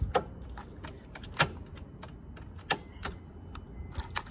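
Several sharp light clicks and taps at uneven intervals over a faint steady low rumble, the loudest about a second and a half and nearly three seconds in.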